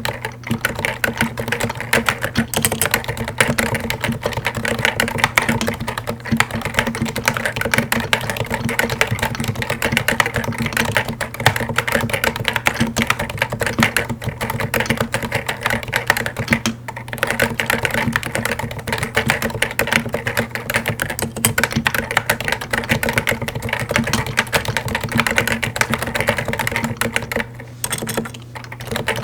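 Continuous paragraph typing on a Topre Realforce Hi-pro keyboard: its 45 g Topre electrostatic capacitive switches under stock Hi-pro keycaps make a dense stream of keystrokes. There is a brief pause near the end.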